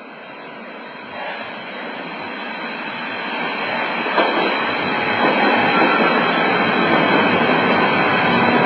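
Berlin S-Bahn class 481 electric train arriving at an underground station platform, its running noise growing steadily louder as it comes out of the tunnel and pulls alongside. There is a sharp clack about four seconds in, and a steady whine joins near the end as it slows.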